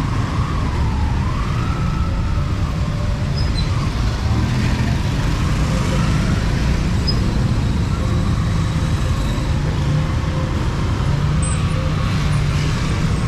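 Busy street traffic rumbling steadily, with a faint wavering whine that rises and falls over it in the first few seconds.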